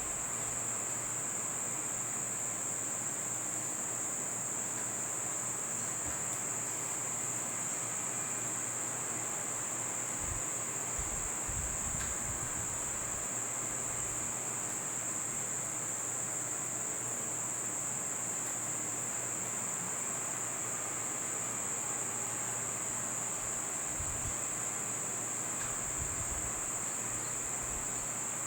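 Steady, unbroken high-pitched insect chorus, cricket-like.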